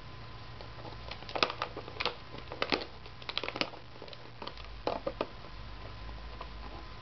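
Basset hound licking out a thin plastic yoghurt cup, the cup crackling and clicking under its tongue and teeth in several short clusters, from about one second in to past five seconds.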